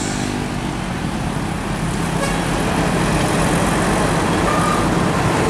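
Diesel engine of a semi-trailer truck loaded with steel coils running as it drives past, a low steady hum over road and traffic noise that grows slightly stronger about two seconds in.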